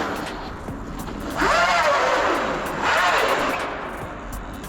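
Quad bike engine revved twice, its pitch rising and falling each time, about a second and a half in and again about three seconds in.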